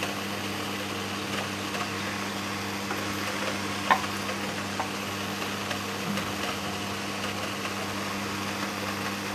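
A steady low hum with a faint hiss, and a single light tap about four seconds in.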